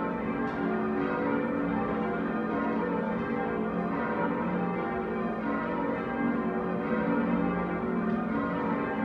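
Church bells being change-rung, their ropes hand-pulled by a band of ringers, a continuous stream of overlapping bell strikes. The bells are heard from inside the church, below the tower.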